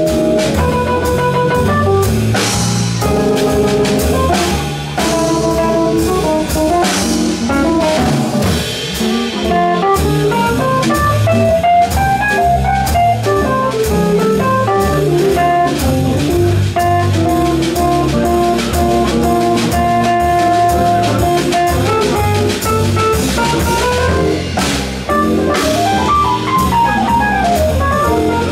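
Small jazz band playing a blues live: drum kit, double bass, piano and guitar keep a steady swing, with a melodic line of stepping notes running over them.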